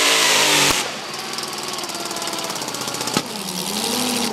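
Supercharged engine of a modified pulling tractor at full throttle, cutting off abruptly under a second in; then a rapid, rough, even clatter, with a single sharp click just after three seconds.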